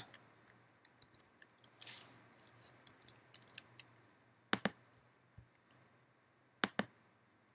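Computer mouse and keyboard clicks: a scatter of faint light taps, then two sharp double clicks about two seconds apart.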